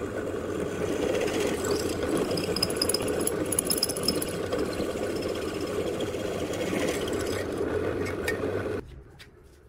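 Drill press running as a twist bit cuts through thin-wall galvanized square steel tube: a steady motor hum with a grinding, scraping cutting noise and brief high squeals from the bit a few seconds in. The sound cuts off abruptly near the end.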